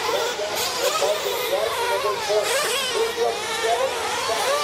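Several nitro RC race trucks' small glow-fuel engines running at high revs, their high-pitched whine rising and falling over and over as the trucks accelerate and brake around the track.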